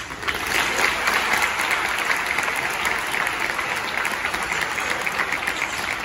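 Audience applauding: many hands clapping together, starting abruptly and easing off a little near the end.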